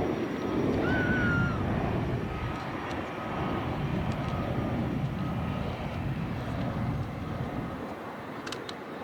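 Airliner engine noise: a steady rumble that eases off slightly toward the end.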